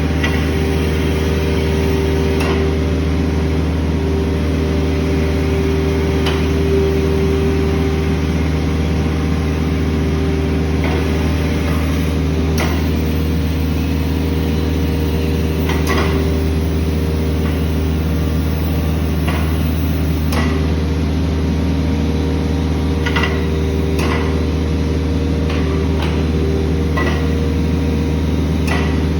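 SCAT concrete cutting machine running with a steady low mechanical drone, while its tilt function is operated, with sharp clicks or knocks every few seconds.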